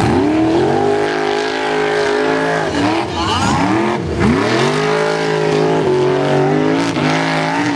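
Formula Offroad buggy's engine revving hard under full throttle, its pitch climbing and holding high, then dropping sharply as the throttle is lifted about three seconds in, again about a second later, and once more near the end.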